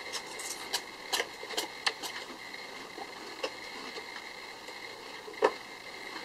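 Holland Lop rabbit sneezing repeatedly: a quick run of short, sharp sneezes in the first two seconds, then a couple more, the loudest about five and a half seconds in.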